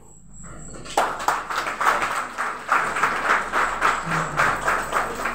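Audience applauding, the clapping starting suddenly about a second in and carrying on steadily.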